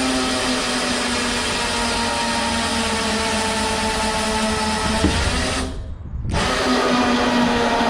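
A motor running steadily with a constant pitch, which drops out briefly about six seconds in and then resumes.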